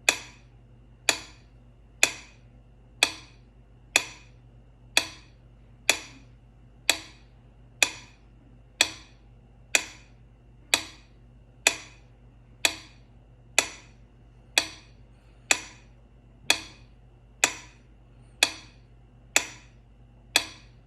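Metronome ticking at 60 BPM: sharp, identical clicks, one about every second, each dying away quickly.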